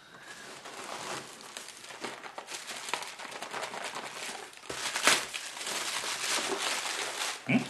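Packaging crumpling and rustling as items are lifted out of a cardboard box and unwrapped, with many small crackles and a louder crinkle about five seconds in.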